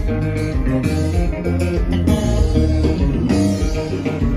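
Live band playing loudly, with electric guitars, bass guitar and drums.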